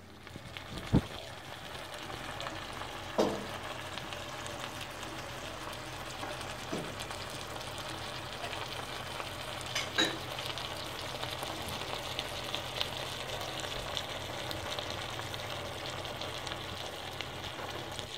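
Saç kavurma (diced meat with peppers, tomato and onion) sizzling steadily in a shallow saç pan over a gas burner as it is reheated, with a few sharp pops or clicks now and then.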